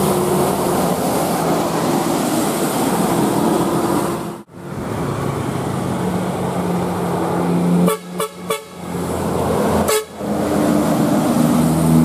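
Tour-bus telolet horns, multi-tone air horns, sounding a run of steady notes over bus engine noise. The sound breaks off abruptly a few times, about halfway in and again between eight and ten seconds in.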